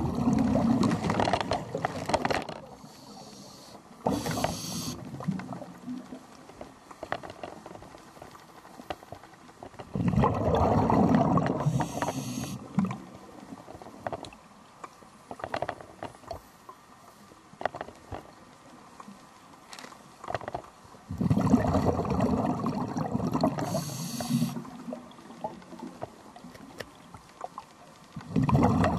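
Scuba diver breathing through a regulator underwater: a rumbling gush of exhaled bubbles about every ten seconds, each lasting two to three seconds, with a short hiss of inhalation in between.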